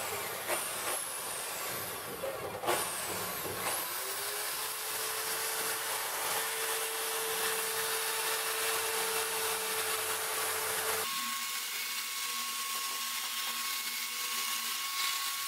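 Bosch half-inch-chuck drill spinning a small mounted grinding stone in the vise's screw hole, grinding the metal to enlarge the hole. It runs with a steady whine that shifts higher, while the low part of the noise drops away, about eleven seconds in.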